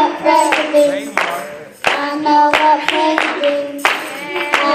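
Children's choir singing a gospel song into microphones, with hand clapping on the beat, about one clap every 0.7 s.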